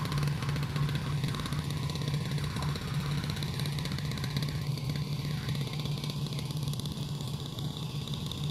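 A boat engine running steadily, a constant low hum with a fast, even throb.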